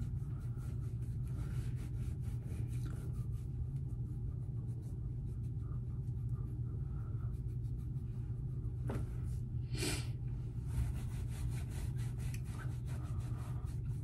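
Makeup wipe rubbing over the face in faint scratchy strokes, over a steady low room hum, with one brief louder swish about ten seconds in.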